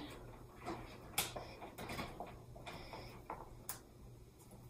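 Scattered light clicks and ticks from zip ties being threaded through half-inch wire hardware cloth lying on a plastic tote lid. The sharpest click comes just over a second in.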